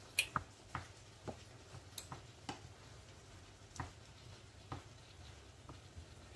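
Wooden spatula knocking and scraping against a frying pan while stirring minced meat and chopped onions: a string of light, irregular knocks.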